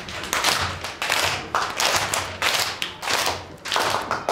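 A teacher and a class of children clapping their hands together in a rhythmic pattern, about two claps a second: a classroom signal to stop work and pay attention.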